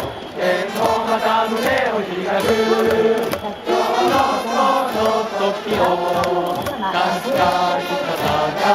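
Crowd of baseball fans singing a cheering song in unison, a loud mass of voices carrying a melody with music.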